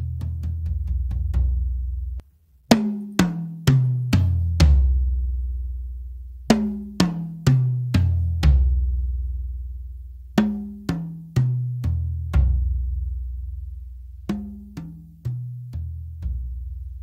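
Drums fitted with Remo Controlled Sound Clear heads (single 10-mil clear film with a 5-mil black dot) struck one at a time in four descending runs. Each run has about five strokes half a second apart, stepping down in pitch from the highest drum to the lowest, whose deep tone rings on after the last stroke. Just before the first run, faster strokes stop with a brief moment of silence.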